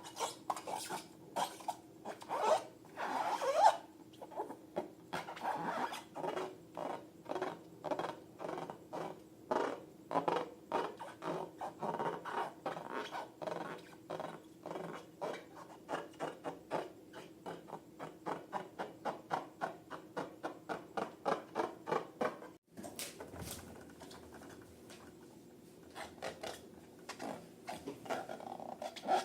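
Rubber balloons being rubbed and squeezed by hand, giving rapid rhythmic squeaks and rubs, about two to three a second, over a faint steady hum. They break off suddenly a little past two-thirds of the way through and pick up again a few seconds later.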